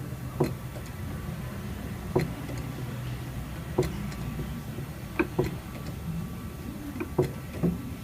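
Sharp knocks or clicks at irregular intervals, seven in all with two close pairs, over a steady low hum, typical of tool work on a vehicle frame in a body shop.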